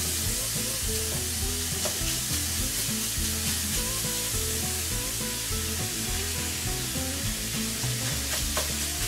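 Ground beef frying in a cast-iron pan on the stove, a steady sizzle.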